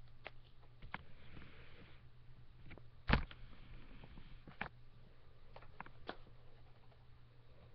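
Crescent electric guitar played quietly, giving scattered short string plucks and clicks without ringing notes, the loudest about three seconds in, over a steady low hum.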